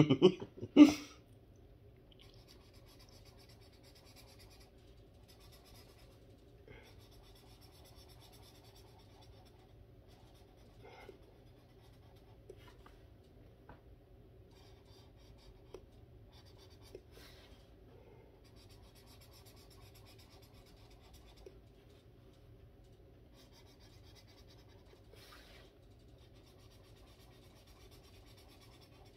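Felt-tip marker rubbing on coloring-book paper in quiet, repeated strokes as an area is colored in. Two brief loud sounds come within the first second.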